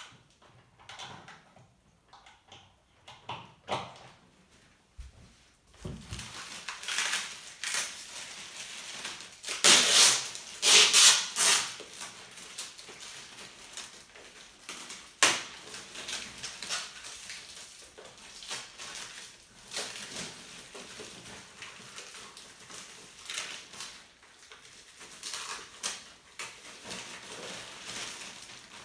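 Packaging being unpacked: irregular rustling and crinkling with scattered knocks and clicks, loudest in a burst of rustling about ten to twelve seconds in, with a sharp click soon after.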